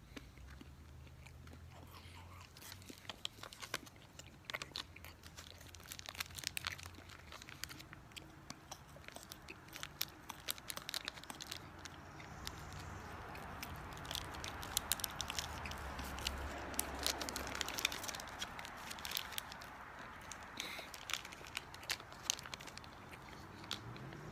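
Plastic wrapper of a beef meat stick crinkling and tearing open, and the stick being bitten and chewed: a string of small crackles and clicks, busiest in the middle.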